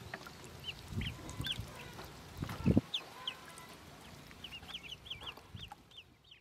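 Pekin ducklings peeping, a string of short high chirps that rise and fall in pitch, coming faster in the second half, with a couple of low water splashes, the louder about two and a half seconds in. The sound fades out at the end.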